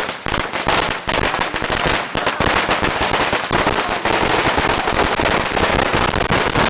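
A long firecracker string, thousands of rounds, going off in a dense, continuous rapid crackle of bangs.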